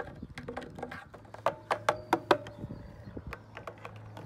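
Plastic toy figures tapping and clacking against the playground pole and its plastic base: a run of light, quick taps, with a few louder knocks in the middle that ring briefly.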